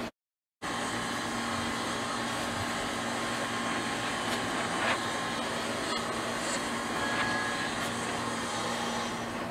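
Steady mechanical hum and hiss of room tone, with a low steady drone. It drops out to silence for about half a second near the start, then carries on with a few faint ticks.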